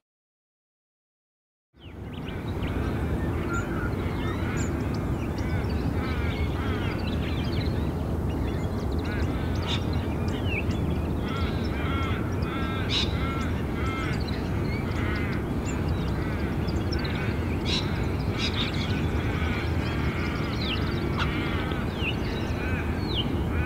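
Many birds calling and chattering over a steady low outdoor rumble, which begins about two seconds in.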